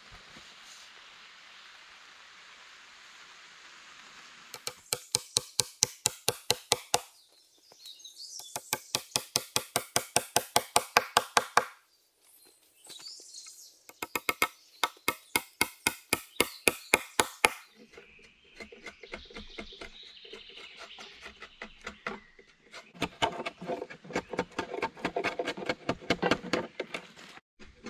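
Fast runs of sharp knocks on oak wood, about eight a second and growing louder within each run, three runs in all, from hand-tool work on the oak table's leg posts. In the last third, a blade carving and scraping at the oak tabletop's edge, with quick uneven strokes.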